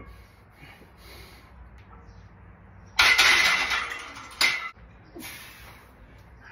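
Loaded barbell clanging against the steel power rack as it is set down: a loud metallic clang with ringing about three seconds in, then a second sharp clang about a second later.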